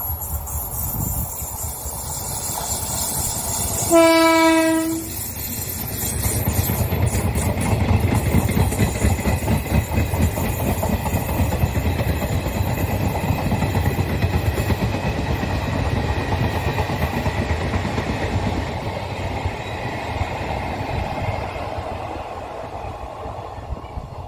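Indian Railways electric locomotive gives one horn blast, about a second long, about four seconds in. Its train of passenger coaches then runs past with a steady rumble of wheels on the track, easing slightly near the end.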